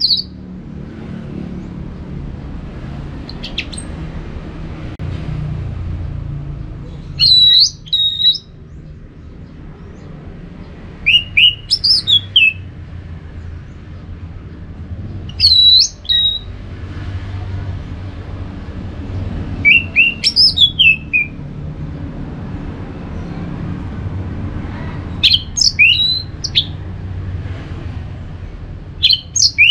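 Orange-headed thrush singing short, loud whistled phrases of quick rising and falling notes, one about every four seconds, over a steady low rumble.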